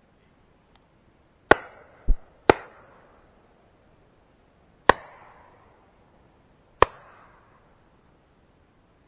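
Four shotgun shots fired at flying ducks: the first two a second apart, then two more about two seconds apart each, each shot trailing off in a short echo. A duller thump falls between the first two shots.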